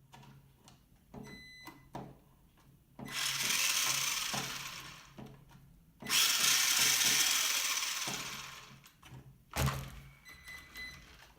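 Wltoys A313 RC truck's electric motor and drivetrain spinning the wheels in the air at full throttle twice, each burst starting sharply and winding down as the wheels coast. A few light clicks come before the bursts and a single thump comes near the end.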